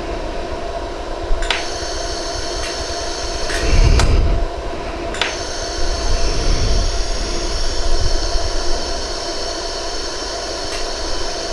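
A 100-joule iWeld jewelry laser welder firing single pulses, each a sharp click, about five of them at uneven intervals, as 0.005-inch wire is welded onto the worn prongs of a white gold ring. Under the clicks runs a steady hum and hiss.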